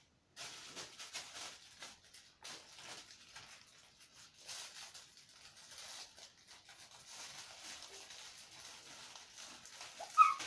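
Plastic packaging bags crinkling and rustling in the hands, with scattered light crackles as they are handled and opened. A baby gives one brief squeal near the end.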